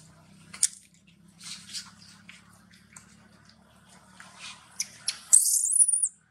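Scattered small wet clicks and smacks, then, about five seconds in, a sudden loud, shrill macaque scream lasting under a second, its pitch bending at the end.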